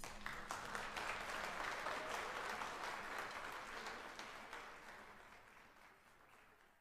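Audience applauding, a dense patter of clapping that fades away over the last few seconds.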